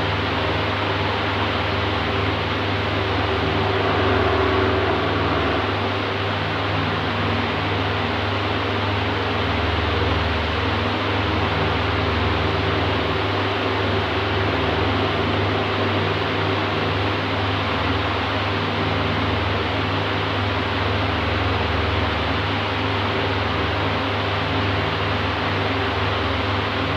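Oscillating electric fan running steadily: an even rush of air from the blades over a constant low motor hum, swelling slightly about four seconds in.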